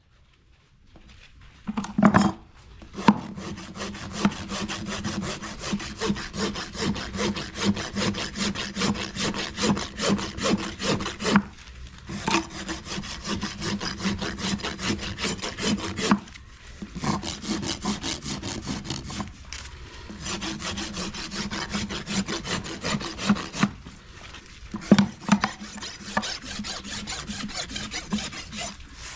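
A farrier's hoof rasp filing the wall of a horse's hoof set on a hoof stand: fast back-and-forth rasping strokes in long runs, broken by a few short pauses. There are a couple of sharper knocks near the start and again near the end.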